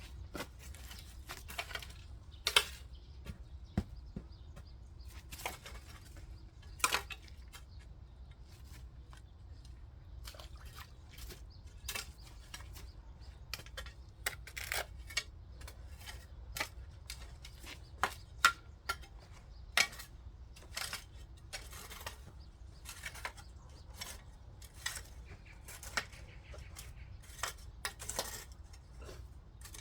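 Irregular short clinks and scrapes, roughly one or two a second with a few louder knocks, from a hand tool working the soil of a garden bed as it is spread out.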